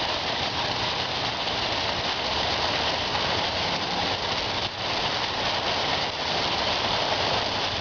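Waterfall splashing in a steady, even rush of falling water.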